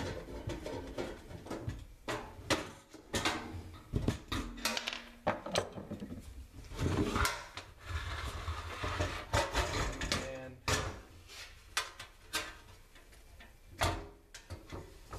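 Irregular metal clicks, knocks and scraping from handling an old Coleman liquid-fuel stove: its green steel case is tipped upright and the burner assembly is worked loose inside it.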